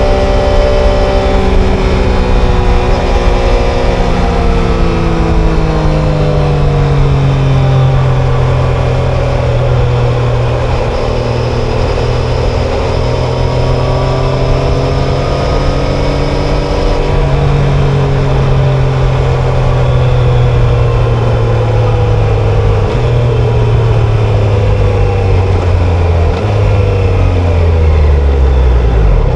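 Triumph Tiger Sport 660's inline three-cylinder engine and exhaust on the move. The engine note falls over the first several seconds and holds fairly steady, then drops in a couple of steps near the end as the bike slows.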